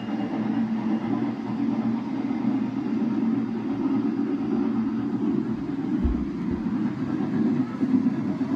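Model trains running on the layout's track: a steady rumble and hum.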